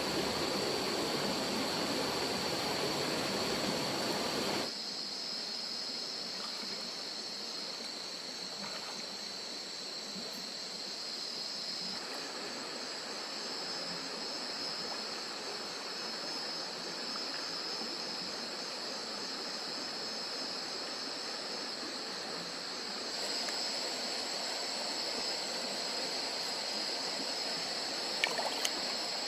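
Stream water flowing and trickling, with a steady high chirring of night insects over it. The water is louder for the first four seconds or so, then drops after a cut.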